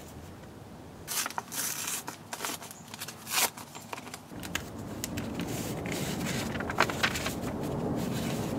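Paper rustling and crinkling in quick, irregular bursts as a handful of mail envelopes and mailers is handled and a letter unfolded. From about four seconds in, a steadier low background noise with a couple of sharp paper snaps.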